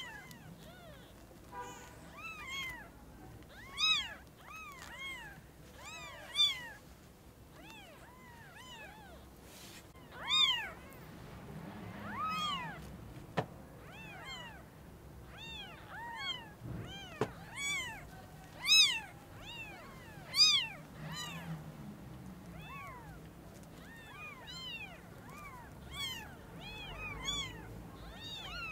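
Newborn kittens mewing over and over: short, high-pitched cries that rise and fall in pitch, coming every second or so, a few of them louder. Two sharp clicks come in the middle.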